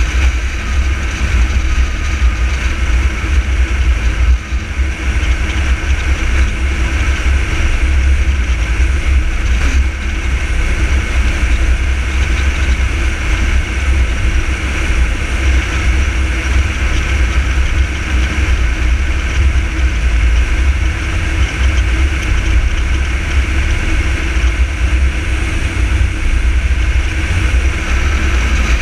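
Car driving at a steady speed: a continuous low rumble of engine, tyres and passing air, with no change in speed or gear.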